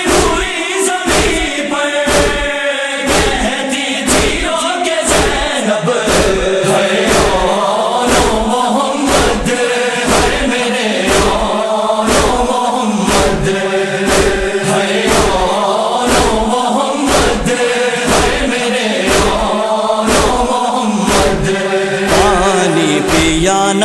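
Male voices chanting a noha, a Shia lament, over a steady thumping beat of about two strokes a second.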